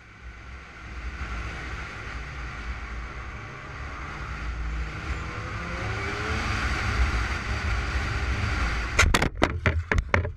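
A car driving, heard from inside: steady road and engine rumble with tyre and wind noise. About nine seconds in comes a rapid burst of sharp bangs and cracks as the car crashes and its windscreen breaks.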